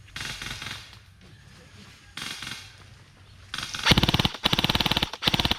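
Airsoft guns firing on full auto. Two short, quieter bursts of rapid fire are followed, about four seconds in, by a loud burst of rapid fire lasting about a second and a half.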